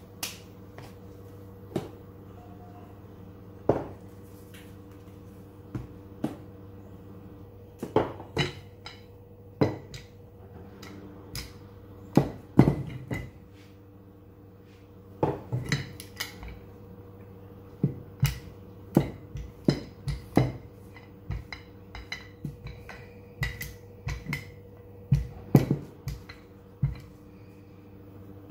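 Irregular knocks and clatters of kitchen tools on a floured worktop: a wooden rolling pin and a small metal tool tapping and set down on the counter while roti dough is shaped. A steady low hum runs underneath.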